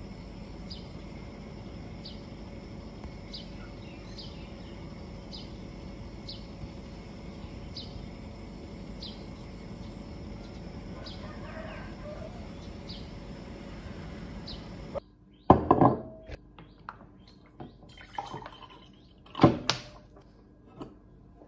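Morning outdoor ambience: a steady background hum with a bird giving a short high chirp about once a second. Then, after a sudden cut, a few sharp knocks as a plastic water bottle and a Thermos stainless-steel tumbler are handled on a wooden table while water is poured.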